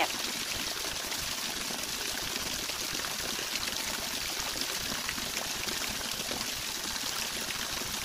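Wide, multi-tiered waterfall cascading over rock ledges: a steady rush of falling water.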